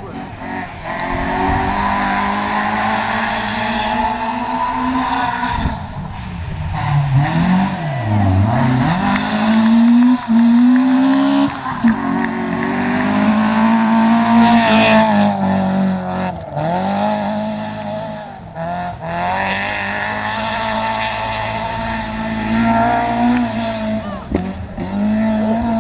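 A rally car's engine running at high revs, its pitch rising and falling repeatedly through gear changes and lifts off the throttle, with a deep drop about eight seconds in.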